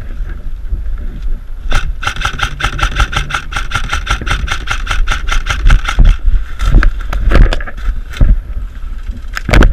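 Airsoft electric rifle firing a rapid full-auto burst of about four seconds, its gearbox whining under the clatter of shots, then a few single shots spread over the following seconds, likely covering fire. A low rumble of wind and handling noise on the microphone runs underneath.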